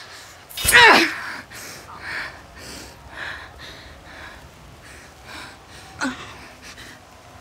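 A woman cries out in pain about a second in, her voice falling in pitch. Ragged gasping breaths follow, and a second shorter cry comes about six seconds in.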